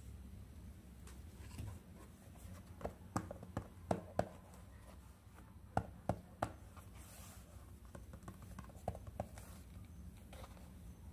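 Small plastic toy pieces being handled and set down by hand: a series of light, sharp clicks and taps in short clusters, over a low steady room hum.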